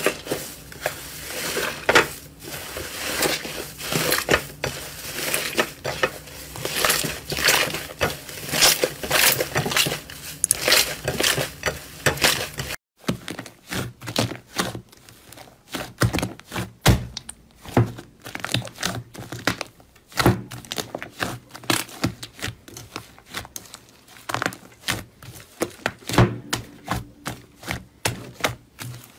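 Hands squeezing and kneading slime: a dense, fast crackle of small pops, then after a brief silence about halfway through, fewer and heavier pops as hands press into a bowl of soft slime.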